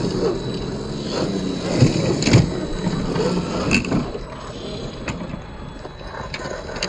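Scale RC rock crawlers creeping over rock: a low electric-motor and gear whine under the scrape of tyres and chassis on stone, with a few sharp knocks near two seconds in and again near four seconds.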